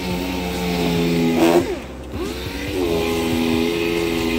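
Handheld random orbital sander running steadily while sanding a bus's side skirt panel. About two seconds in it slows with a falling pitch, then spins back up and runs on.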